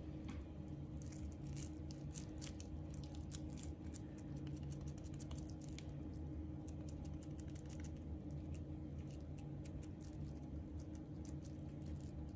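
Hands squeezing and rolling a raw minced-beef mixture into a log, making soft, wet, sticky clicks and squelches, quick and irregular, over a steady low hum.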